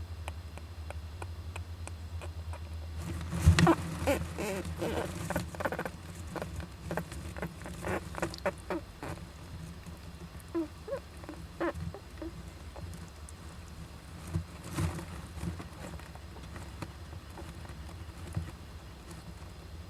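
Japanese giant flying squirrels inside a nest box, scrabbling and giving short squeaky calls. A dense burst starts about three seconds in and runs for several seconds, then scattered ones follow, over a steady low hum.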